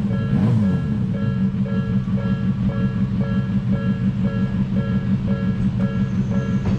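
Electronic level-crossing warning bell ringing in a steady two-tone clang about twice a second, over the low rumble and wheel clatter of a Hakone Tozan Railway electric train at the crossing.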